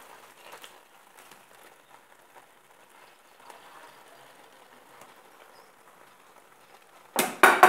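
Faint simmering of tomato sauce in a frying pan as fried eggplant slices are laid into it. Near the end comes a short cluster of two or three loud knocks from the wooden spatula against the pan.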